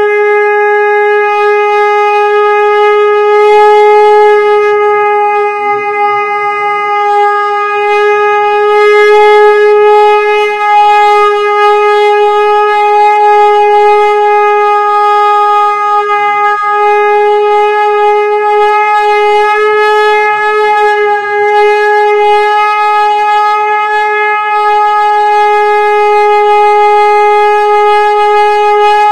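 Conch shell (shankha) blown as one long, unbroken, steady note.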